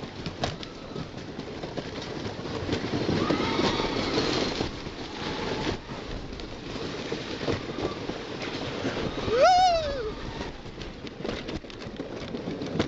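The Cyclone's wooden roller-coaster train rattling and rumbling along its track, with wheels clattering and knocking over the rail joints. About nine and a half seconds in, a rider lets out a loud scream that rises then falls in pitch.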